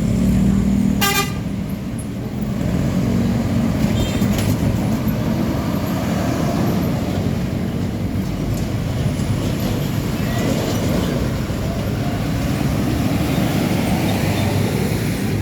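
Road traffic with heavy trucks' diesel engines running and passing, and a short vehicle horn toot about a second in.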